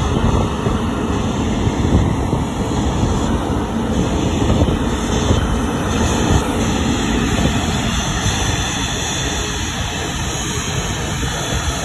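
Airbus A380 taxiing at close range, its four jet engines giving a loud, steady rumble at taxi power.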